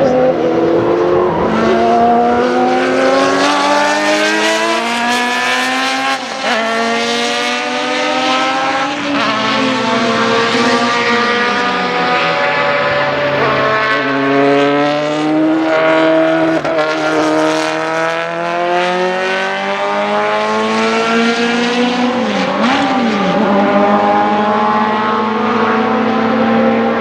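Group C sports-prototype race car engines running hard, their pitch climbing repeatedly and dropping back as they accelerate and shift up through the gears. Several cars are heard at once.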